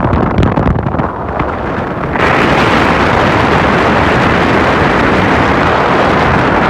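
Wind and road noise of a moving car, a steady rush that turns suddenly louder and hissier about two seconds in.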